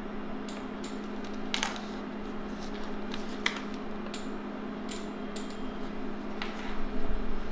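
Steady electrical hum from a bench-powered analog servo unit running on a 400 Hz, 115 V AC supply, with scattered sharp clicks as banana-plug test leads are pulled and plugged in. No servo motor is heard running: the magnetic-amplifier servo is not responding to its input.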